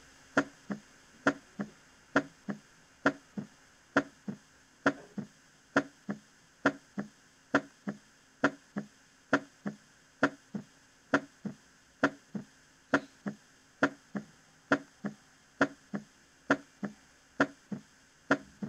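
Auscultation recording of heart sounds: a steady lub-dub, a little over one beat a second. The second sound (S2) splits into two close components on inspiration and merges back into a single sound on expiration, which is normal physiological splitting of S2.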